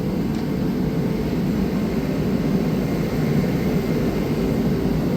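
Shop heater running steadily: a constant low hum with a rush of air.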